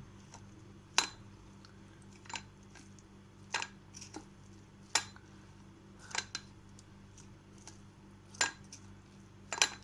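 A spoon clinking and scraping against a strainer and bowl as grated ginger is pressed to squeeze out its juice: sharp, irregular clinks about once a second.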